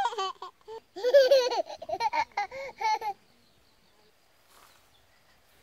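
High-pitched voices of a woman and a small child chattering and laughing for about three seconds, then near silence.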